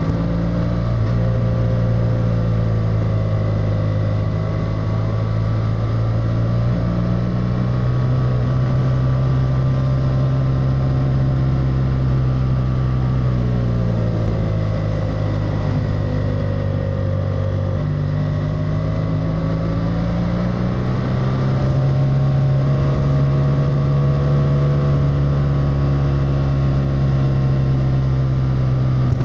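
BMW F800R's parallel-twin engine running as the motorcycle is ridden along a winding road, heard from the rider's helmet. Its pitch drops about halfway through as the bike slows, then climbs again a few seconds later and holds steady at a higher pitch.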